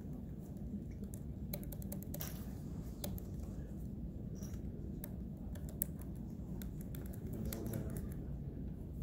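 Typing on a computer keyboard: irregular bursts of key clicks over a steady low background hum.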